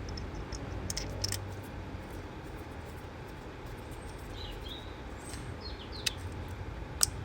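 Scattered light clicks and taps as ignition coil packs and their parts are handled on the engine, a few sharp ones about a second in and again near the end, over a low steady hum, with a couple of faint short chirps near the middle.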